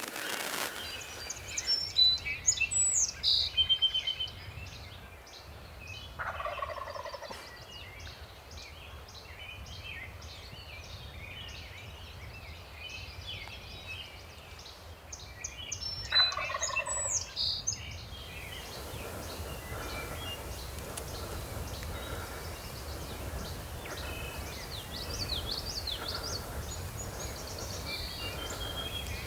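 Wild turkey gobbler gobbling twice, about ten seconds apart, over songbirds chirping and calling throughout.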